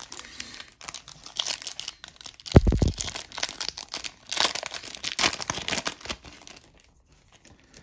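Foil wrapper of a trading card pack being crinkled and torn open by hand, with a dull thump about two and a half seconds in.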